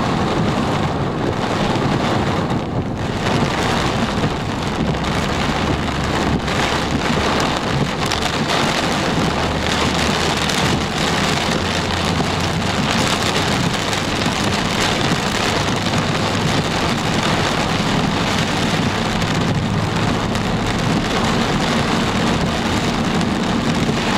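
Heavy, wind-driven rain drumming steadily on a car's windshield and roof, heard from inside the moving car, with a steady low rumble of the car's engine and tyres underneath.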